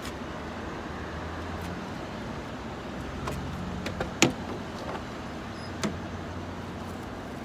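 A car idling with a steady low hum, and a car door latch clicking open about four seconds in, with a couple of lighter clicks from the door.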